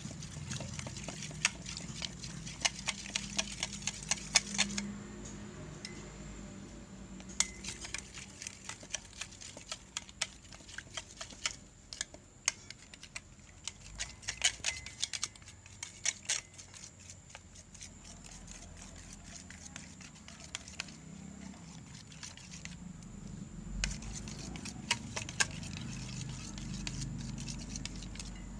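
Slime being stirred in a container with a stirring stick as activator is worked in: irregular runs of sharp little clicks and sticky taps, with short pauses between them.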